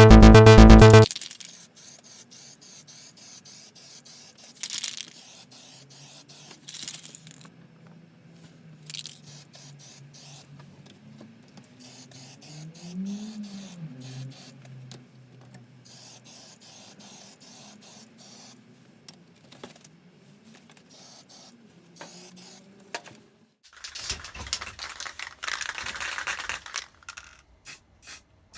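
Electronic music for about a second at the start, then a long quiet stretch with a few faint clicks. Near the end an aerosol can of alkyd spray paint hisses in several short bursts.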